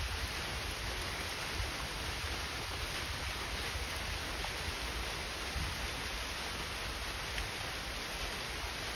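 Steady rain falling on foliage, an even hiss with a low rumble underneath.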